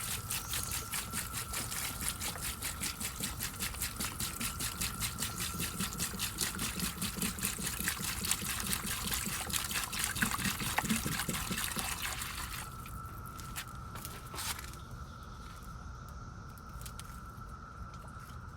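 Water poured into a plant tray, glugging in quick pulses, stops about twelve seconds in. A few light knocks follow.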